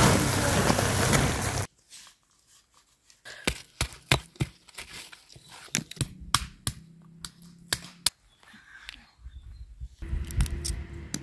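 Green-husked walnuts tumbling out of a sack onto a heap, a loud rushing clatter that cuts off after about two seconds. Then a run of sharp single knocks as walnuts are cracked with a stone, and near the end the crackle of a walnut shell being pulled apart by hand.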